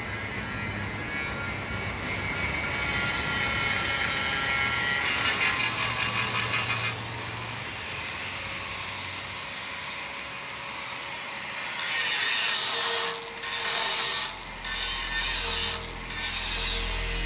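Mechanical, hiss-like noise that changes abruptly about seven seconds in and again about twelve seconds in, with brief breaks near the end.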